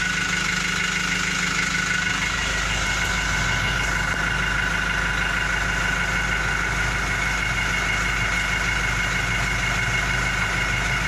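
Truck engine idling steadily, heard from inside the cab, with a steady high whine over the low rumble.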